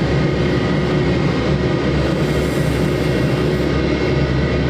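Jet airliner engines running, a loud steady noise with a faint high whine held throughout.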